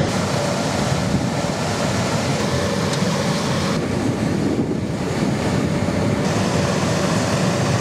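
Steady, loud rushing noise of car wash machinery running, with a faint steady tone underneath.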